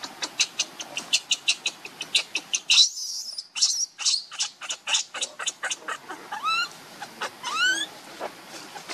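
Infant macaque crying: a fast run of short, shrill squeaks, about four a second, then two longer calls that sweep upward in pitch near the end.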